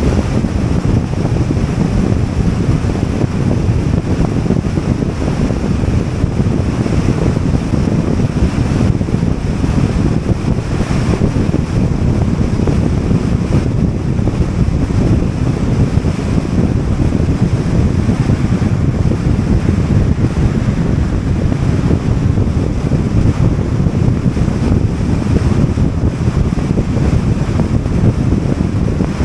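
Steady wind buffeting the microphone, over the rumble of a vehicle moving at highway speed.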